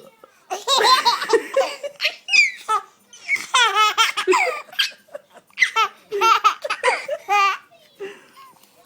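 Seven-month-old baby laughing hard, in several bouts of quick, high, breathy giggles with short pauses between them.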